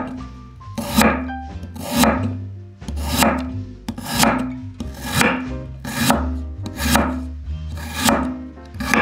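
Kitchen knife cutting vegetables on a cutting board, one scraping stroke about every second, with background music underneath.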